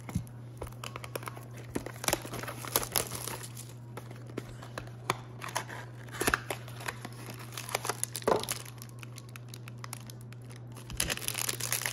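Hands opening a small cardboard box of trading cards and handling the foil-wrapped card stack inside: irregular taps, scrapes and foil crinkling, with the foil crinkling and tearing growing busier near the end. A steady low hum runs underneath.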